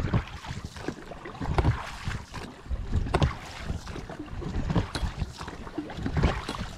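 Wind gusting on the microphone aboard a small fishing boat, with water sounds around the hull and a couple of sharp clicks about three and five seconds in.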